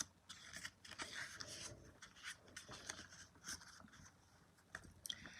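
Paper rustling with small scrapes and clicks, a book being handled and a page turned.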